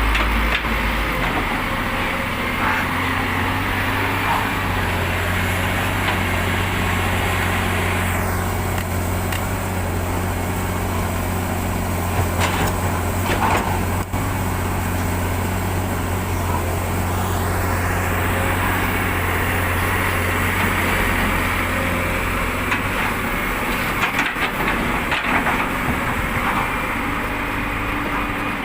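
Heavy diesel machinery running steadily at a dirt dig, with the excavator and dump truck engines humming at a constant low pitch. Occasional knocks and clatters come through about halfway and again near the end.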